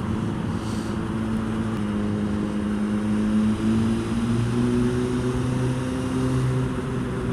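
2005 Yamaha R1's inline-four engine running at a steady cruise under wind and road rush. Its note steps up a little about halfway through.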